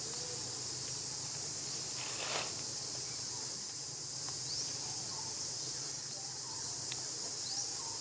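Steady high-pitched drone of jungle insects, with a few short rising bird chirps now and then and a brief noisy swish a little over two seconds in.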